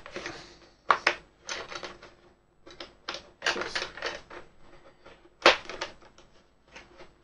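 Plastic welding helmet being handled as its filter glass and protective glass are fitted into the window frame and fastened with a clip: a string of irregular clicks, knocks and rattles of plastic and glass, with a sharper knock about five and a half seconds in.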